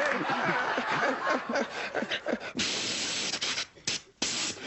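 Laughter and chuckling, then from a little past halfway a steady spraying hiss made with a performer's mouth as a sound effect, broken twice by brief pauses near the end.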